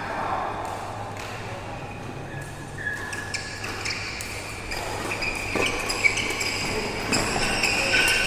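Badminton rally in a large hall: rackets strike the shuttlecock with sharp, echoing pops several times in the second half, and shoes squeak briefly on the court floor as the players move.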